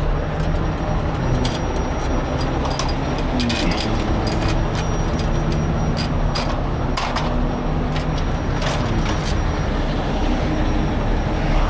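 Heavy diesel tow trucks idling, a steady rumble whose engine note shifts a little twice. Scattered sharp clicks and clanks of metal gear sit over it.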